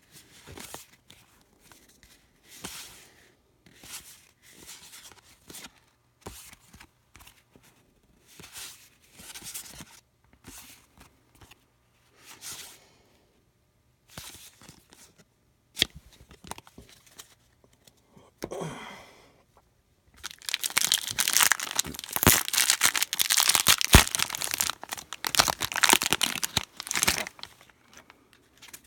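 Trading cards handled and slid against one another in short, soft brushing sounds, then about twenty seconds in a loud crinkling and tearing of a trading-card pack wrapper being ripped open, lasting several seconds.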